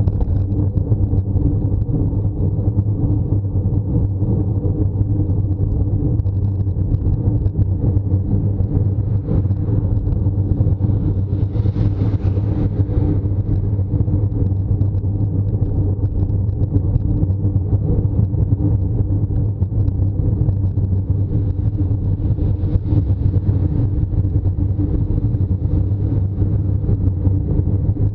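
Steady low rumble of road and wind noise picked up by a camera riding on a road bicycle during a climb. About twelve seconds in, a car overtakes, its hiss swelling briefly and fading.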